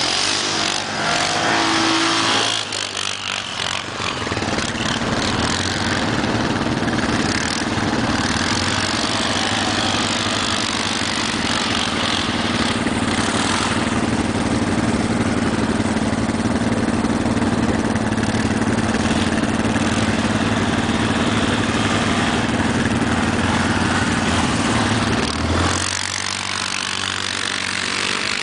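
ATV engines running throughout: a four-wheeler revving as it pulls away and climbs a snowy hill, over the steady idle of another ATV close by.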